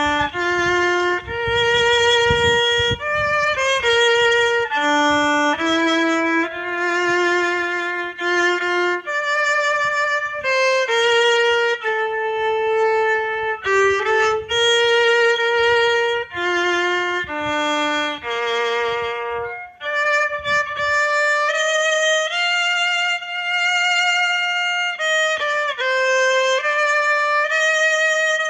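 A solo violin plays a slow melody, one note at a time, mostly long held notes. A low rumble runs underneath for roughly the first two-thirds, then drops away.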